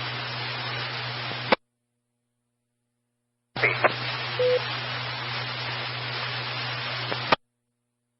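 Amateur-radio FM transmissions with no voice: the hiss of an open channel with a low hum ends in a squelch-tail crack about a second and a half in. After a couple of seconds of dead silence, another transmission of hiss with a short beep near its start keys up and again ends in a squelch crack.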